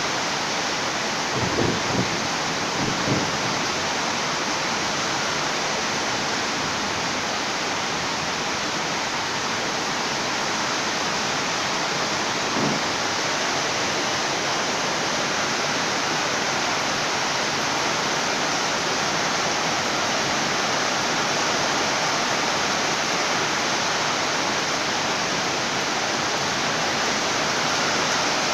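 Steady, heavy rain falling. There are a few brief low thumps in the first few seconds and one more about halfway through.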